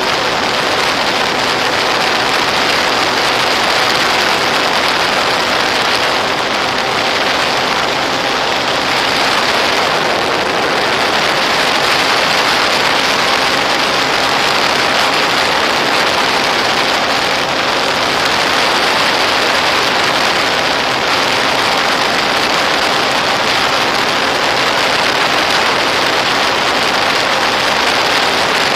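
Steady, loud rushing hiss with faint steady humming tones underneath, the audio of the FPV feed from a Volantex Ranger EX RC plane in flight.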